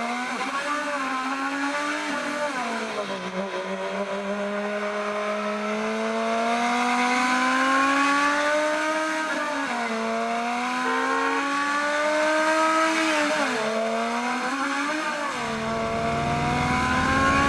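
Car engine accelerating through the gears: its note climbs steadily, then drops back at each shift, three times. A deeper rumble joins near the end.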